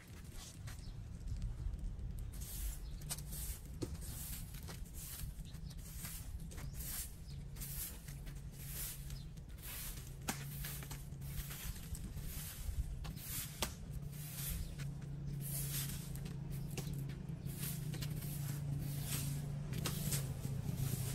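Plastic broom sweeping sand and dry leaves across a paved sidewalk: a run of short swishing strokes, about one or two a second. A low steady hum lies underneath, growing louder near the end.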